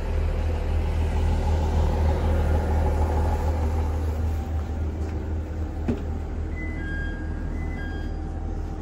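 Diesel railcar engine idling steadily with a deep rumble, the train standing at the platform; the rumble eases slightly about halfway through. A single knock comes about six seconds in.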